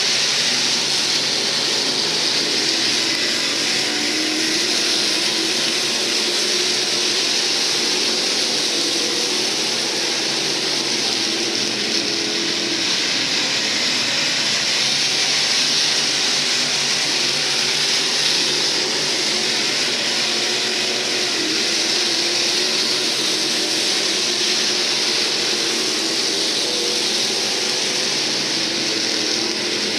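Engines of IMCA SportMod race cars running at speed on a dirt oval: a steady, loud drone with a faint wavering engine pitch underneath.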